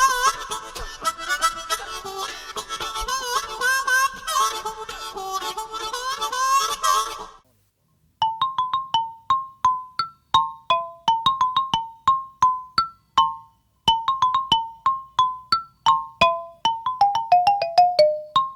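Harmonica playing a tune with bending, sustained notes, stopping about seven seconds in. After a short pause a struck or plucked instrument plays a melody of short notes that start sharply and die away quickly, stepping down in pitch near the end.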